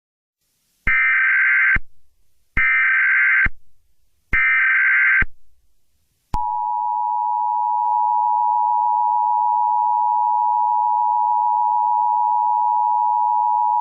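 Emergency Alert System SAME header: three short data bursts of about a second each, evenly spaced. Then comes the EAS two-tone attention signal, a steady, unbroken dual tone.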